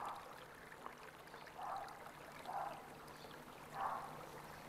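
Faint running water, with four short, faint calls over it, about a second apart.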